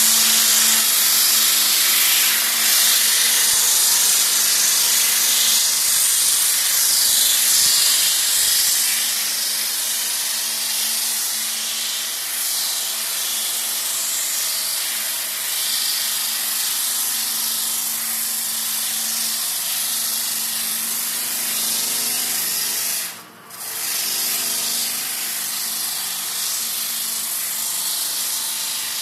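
Parquet floor sanding machine running, a steady high hiss over a low motor hum, briefly dipping about 23 seconds in.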